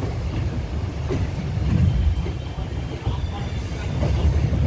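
Train running slowly into a station, heard from the carriage: a steady low rumble of wheels on track with a few faint clicks.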